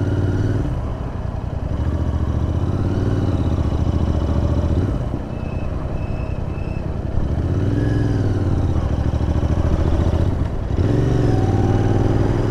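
Royal Enfield Interceptor 650's parallel-twin engine under way, the throttle opened and eased off several times so that its pitch rises and falls, with wind rushing past.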